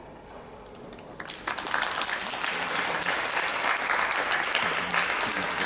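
Audience applause breaking out suddenly about a second in and continuing steadily.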